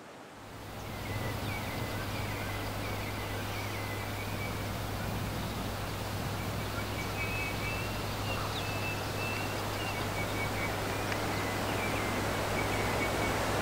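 Steady rushing of a waterfall and stream, fading in over the first second, with birds chirping over it and a steady low hum underneath.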